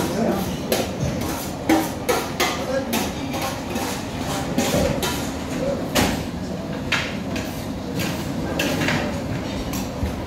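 Busy restaurant ambience: people talking in the background, with frequent sharp clatters and knocks at an uneven pace, a few louder than the rest.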